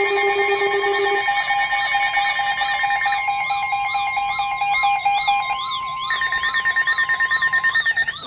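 Layered electronic emergency-alert tones: several steady pure tones sound together with a warbling, siren-like tone that sweeps up and down about twice a second. The lowest tone cuts out about a second in, and the others drop out one by one toward the end.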